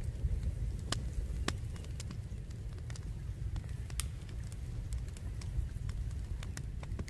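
Small campfire of dry twigs crackling, with scattered sharp snaps and pops as sticks are fed in, over a low steady rumble of wind on the microphone.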